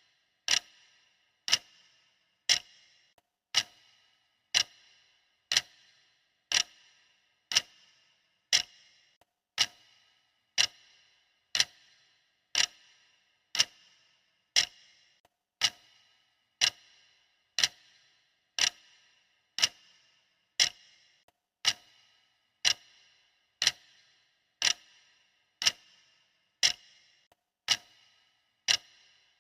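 Stopwatch ticking sound effect: one sharp tick a second, each with a short ring, steady and even.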